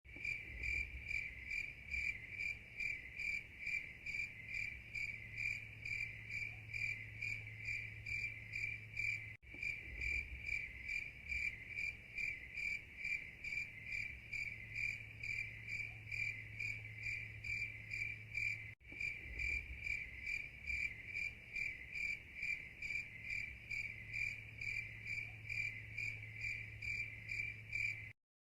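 Cricket chirping, a high-pitched pulsing about three times a second over a low hum, as a looped sound clip that restarts twice with a brief break each time.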